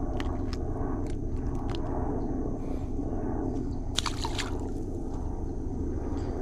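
Wet sloshing and squishing of water, with a few short sharp clicks early on and a brief cluster of splashy knocks about four seconds in, over a steady low rumble.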